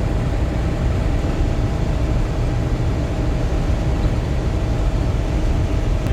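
Self-propelled swather running steadily with its header and cutter knife going again after a jam was cleared: a steady low drone.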